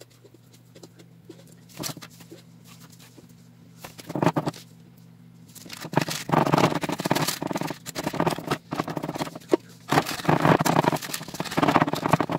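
Wooden spoon pressing and scraping thick halwa into a glass dish lined with parchment paper, starting about halfway in, with the paper rustling and crinkling under the hands near the end.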